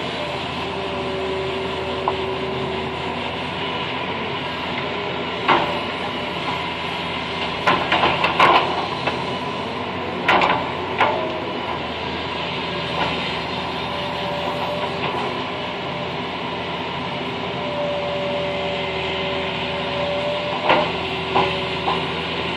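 Excavator heard from inside the cab: the diesel engine runs steadily under a whine that comes and goes as the hydraulics work the arm and bucket. Several knocks and clanks from the bucket and linkage as it digs, a cluster of them about eight seconds in.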